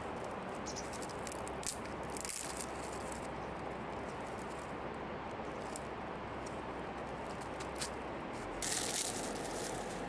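Thin willow twigs rustling and crackling as they are gathered and bunched into a bundle by hand, in short scattered bursts with the loudest crackle near the end, over a steady rushing background noise.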